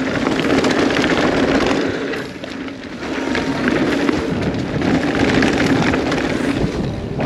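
Mountain bike riding fast down a dirt downhill trail: a steady rumble of tyres on the ground with clattering from the bike and wind noise on the microphone, easing briefly about two seconds in.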